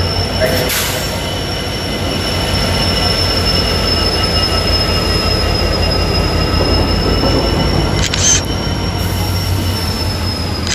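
3000 HP Cape-gauge diesel locomotive moving slowly, with a steady high-pitched wheel squeal over a low hum from the engine. A couple of short camera clicks sound about a second in and near the end.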